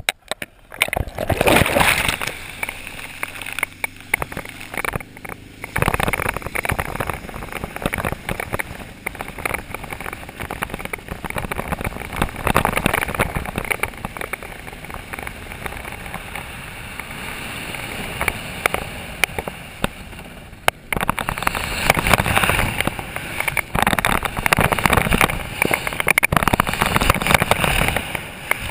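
Water rushing and spraying around a slalom water ski and against a chest-mounted camera, with wind buffeting the microphone, as the skier is towed behind a boat. It swells up about a second in, eases through the middle, and turns louder and rougher for the last third as the ski carves through the spray.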